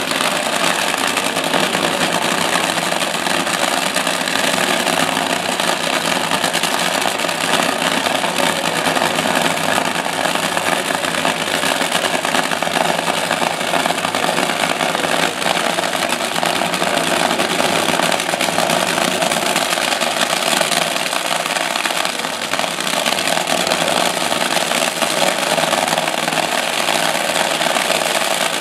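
Two Funny Car drag racing engines running steadily at idle on the starting line while the cars are staged.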